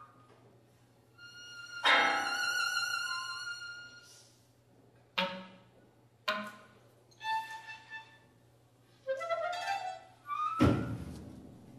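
Contemporary chamber music for flute, clarinet, violin and piano, played as short separate gestures with pauses between them. About two seconds in comes a long note with a rich sound, then sharp short accents and a brief rising figure. Near the end comes a loud, deep attack.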